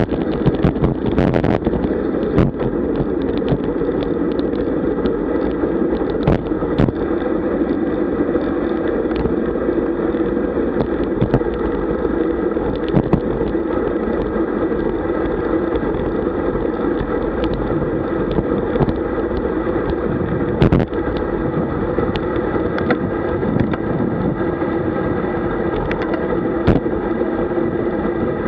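Steady rumble of wind buffeting the microphone of a camera on a road bike at speed, mixed with tyre and road noise, with a few sharp clicks scattered through.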